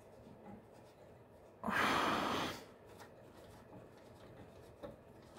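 A man sighing: one long exhale of about a second, a third of the way in.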